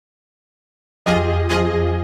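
Silence for about a second, then background music starts abruptly: a deep bass note under a held chord, struck again about half a second later.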